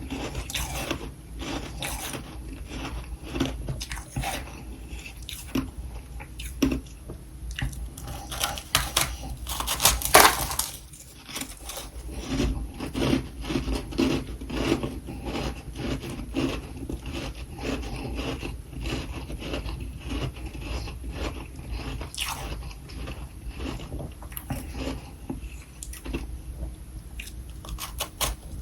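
Irregular crunching and scraping: a dense run of small clicks and crackles, with a louder burst about ten seconds in.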